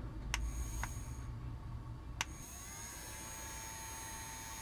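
Small battery-powered fan motor of a toy bubble gun humming faintly while it blows large soap bubbles, with three sharp clicks in the first two seconds. A thin steady whine joins the hum a little over two seconds in.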